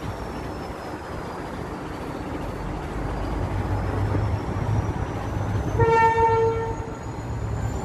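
Freight train rumbling alongside, with a short horn blast about six seconds in: one steady note lasting about a second.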